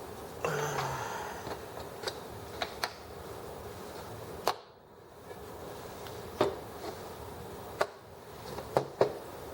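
Scattered sharp clicks and knocks of small metal sewing-machine parts being handled and set down, with a short scraping rustle about half a second in.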